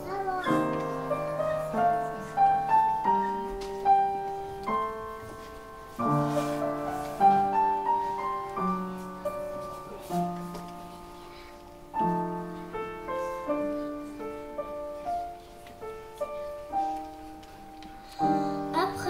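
Upright piano playing an instrumental passage: a new bass note and chord struck about every one to two seconds, with short rising figures of single notes above.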